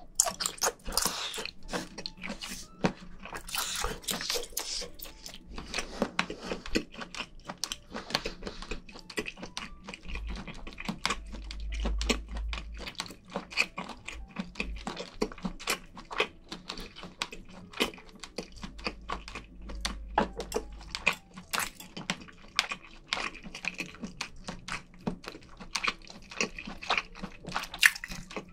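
A person chewing a mouthful of chewy squid close to the microphones: a steady run of wet smacking and clicking mouth sounds. Two stretches of low rumble come in the middle.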